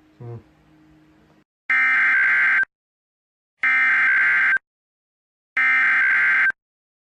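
NOAA Weather Radio SAME header: three identical bursts of warbling digital data tones, each about a second long with about a second of silence between them. The header opens an Emergency Alert System special marine warning.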